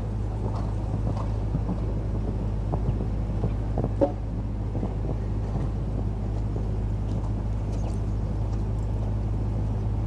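Steady low rumble, with faint irregular thuds of a horse's hooves cantering on a sand arena and one sharper knock about four seconds in.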